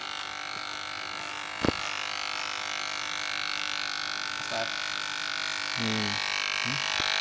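Cheap electric hair clipper running steadily with a constant high buzz, with one sharp click about two seconds in.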